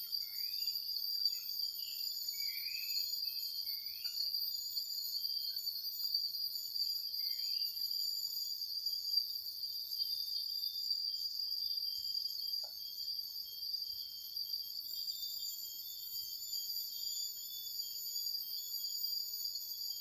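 Night-time insect chorus, a steady high-pitched trilling of many insects at once, with a few short chirps in the first several seconds.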